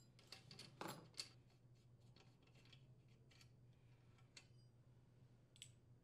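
Faint metallic clicks and taps of small engine parts being handled as the exhaust valve rocker arm and push rod are taken off a Briggs & Stratton overhead-valve cylinder head. A quick cluster of clicks comes in the first second and a half, then scattered lighter ones, over a low steady hum.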